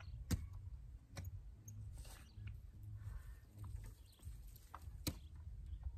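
A spade digging into loose garden soil, making a few faint, sharp knocks (about three clear ones) over a low steady rumble.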